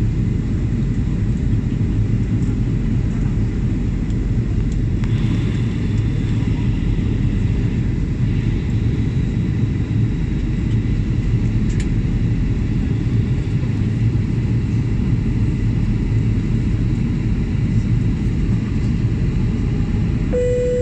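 Steady low rumble of an airliner's engines and rushing airflow heard inside the passenger cabin, on the approach for landing. A short steady tone sounds near the end.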